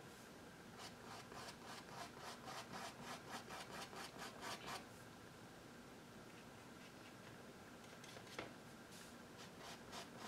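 A damp paintbrush rubbing quickly back and forth on a stretched canvas, faint strokes at about four a second, blending paint. The strokes pause midway and resume, with one small tick about eight seconds in.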